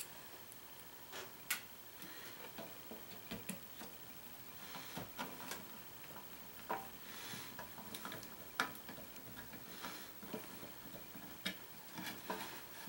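Irregular small clicks and taps from hands and a screwdriver working on the plastic base and circuit board of a slow cooker, with a couple of sharper clicks among them.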